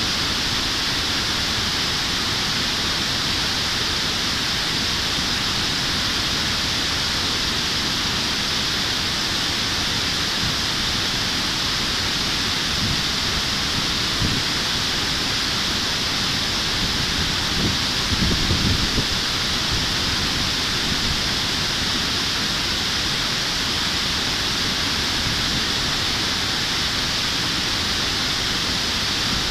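Steady rush of stream water pouring over a concrete weir, with a few brief low rumbles a little past halfway.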